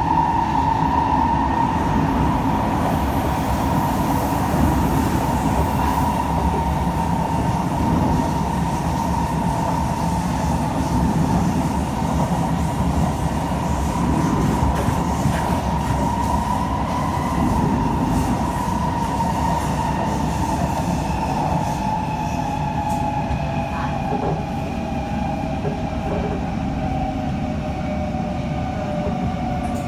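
Onboard sound of a Kawasaki–Kinki Sharyo C151 metro train with PMSM traction running: a steady high whine from the traction motors over the rumble of the wheels on the track. In the last several seconds the whine slowly falls in pitch.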